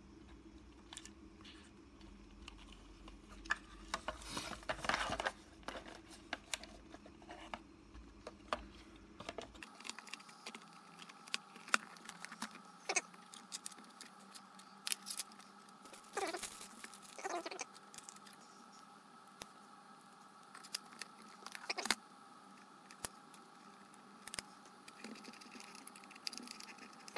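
Small plastic clicks, taps and rubbing from hands handling the shell and antenna bracket of a DJI Phantom 3 SE remote controller, irregular throughout, with a busier stretch of handling about four to five seconds in.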